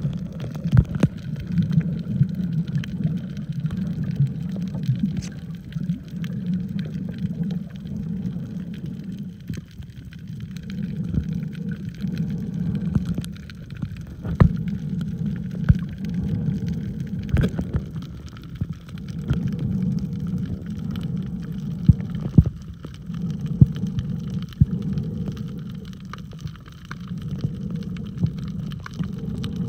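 Muffled underwater sound heard through a submerged phone's microphone: a low rumble of moving water that swells and fades every few seconds, with scattered sharp clicks and crackles.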